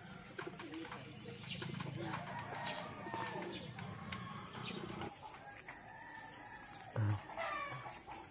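Backyard chickens: a rooster crows faintly near the end, after a low steady hum that stops about five seconds in and a short thump about seven seconds in.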